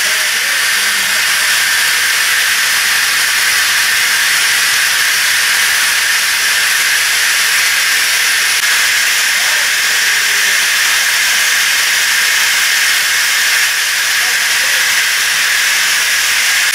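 Continuous loud hiss of steam from a Hunslet Austerity 0-6-0 saddle-tank locomotive standing over the ash pit while its fire is being disposed of. The hiss is steady and even, with no pulses or changes.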